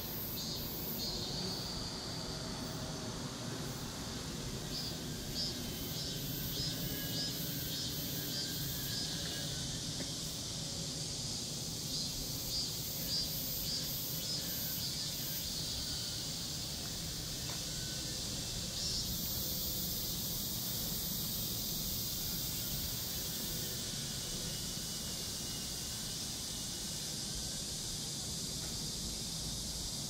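Steady outdoor background noise, with a high-pitched pulsing call repeating about twice a second from about five seconds in until about sixteen seconds in.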